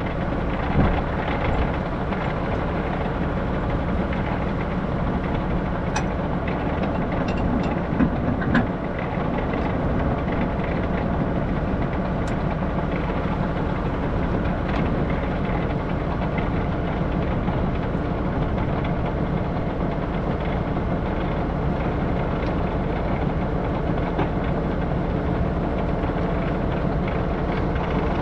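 Tractor engine running steadily at constant speed, with a few sharp clanks in the first nine seconds.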